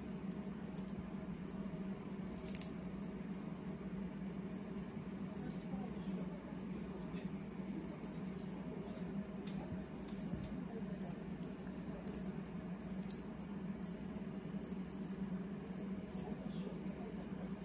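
Small rattle on a cat's feather wand toy, jingling in quick, irregular shakes as the cat bats at it. A steady low hum runs underneath.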